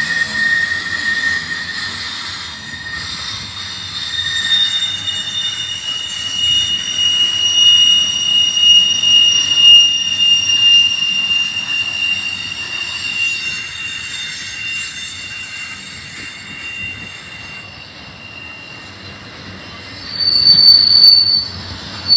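Freight cars of an intermodal train rolling past close by, their steel wheels squealing against the rails in long, steady, high-pitched tones that slowly shift in pitch over the rumble of the cars. The loudest, sharpest squeal comes near the end.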